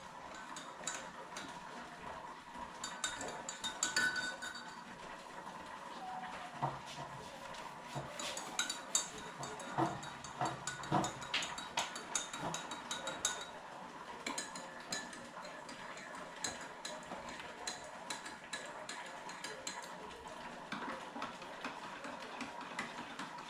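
Cutlery and dishes clinking at a meal table: scattered light clicks and taps of spoons against cups and plates, over a faint steady hum.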